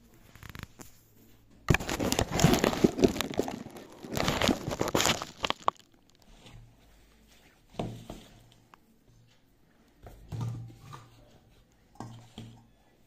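Hands mixing and squeezing crumbly wheat-flour dough in a steel bowl, giving rustling, scraping and crunching sounds. The loudest is a stretch of rubbing and crackling of about four seconds starting near two seconds in, followed by a few short, quieter bursts.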